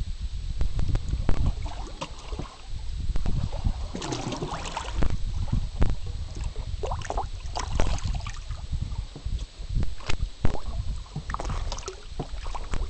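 Batfish feeding at the water surface, splashing and slapping irregularly as they snatch food, over a steady low rumble.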